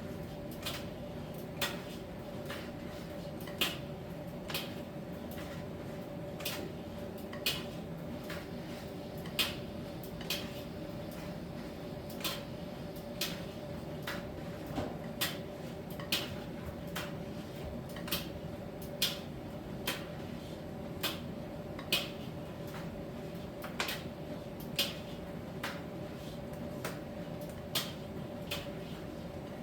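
Miele T1 heat-pump tumble dryer running in its drying phase: a steady hum with a constant tone, and sharp light clicks about once a second as the drum turns the load.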